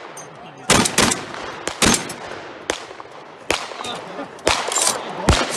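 Gunshots from several firearms on an outdoor shooting range: about eight sharp reports at irregular intervals, some less than half a second apart, each trailing off in a short echo.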